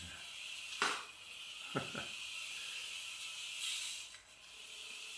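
Atomix micro RC toy car driving across the floor: a steady high whirring hiss from its tiny motor and wheels, dipping briefly near the end, with sharp knocks about one and two seconds in.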